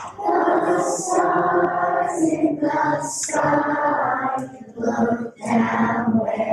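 A group of young children singing a song together, with a short break between phrases about five seconds in.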